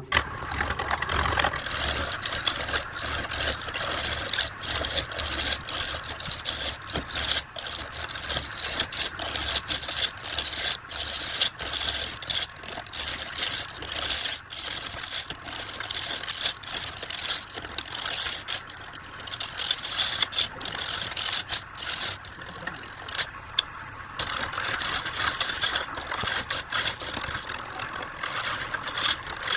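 Wood lathe running with a steady motor hum while a turning tool scrapes and cuts the spinning workpiece, sending off a dense rasping noise. The cutting stops for about a second roughly three-quarters of the way through, then resumes.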